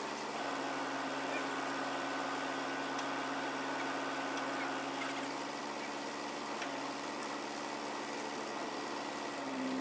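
Truck engine running steadily to power a truck-mounted UNIC loader crane, with a thin whine over roughly the first half while the crane is working.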